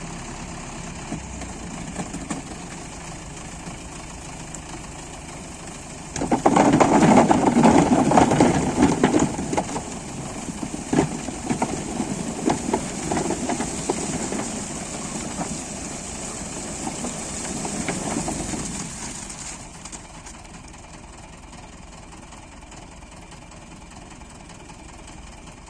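A SIP Tornado 40 corn harvester and its tractor running during the maize harvest. About six seconds in, a loud rattling clatter sets in, crop going through the machine, and dies back after about thirteen seconds to a quieter, steady running.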